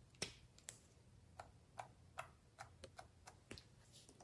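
A run of about a dozen faint, sharp clicks at irregular intervals from small plastic heart-shaped containers being handled and pressed.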